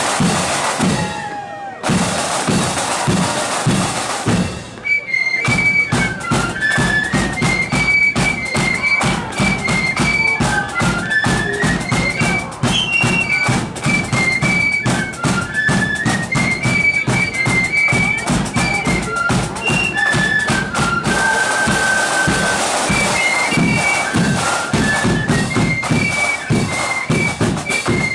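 Marching flute band playing a march. Drums alone for about the first five seconds, then the flutes come in with a high melody over a steady bass-drum and snare-drum beat.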